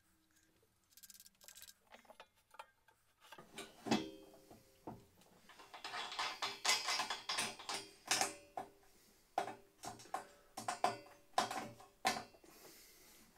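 Rear hub-motor wheel being fitted into steel scooter forks and its axle nut tightened with a hand tool: a run of metallic clicks, taps and knocks that starts a few seconds in and is densest in the second half.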